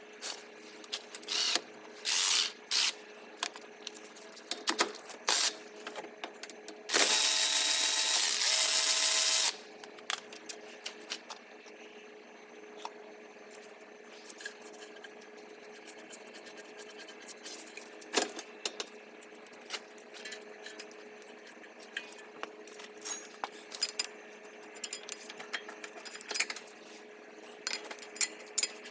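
Metal clicks and clinks of hands and tools working a rear brake caliper. About seven seconds in, a cordless drill runs steadily for about two and a half seconds, after two shorter loud bursts earlier on. A steady hum sits underneath throughout.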